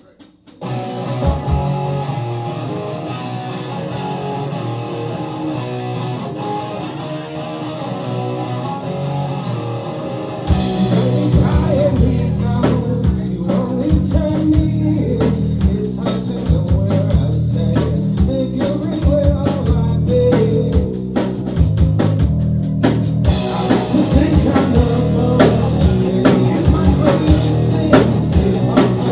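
Rock song playing: a quieter guitar-led intro starts about half a second in, then about ten seconds in the full band comes in louder with a drum kit beat and singing.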